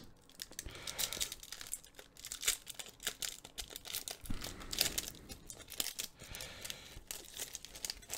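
Foil wrapper of a trading-card booster pack and its cards being handled: faint, irregular crinkling, tearing and rustling, busier a little past the middle.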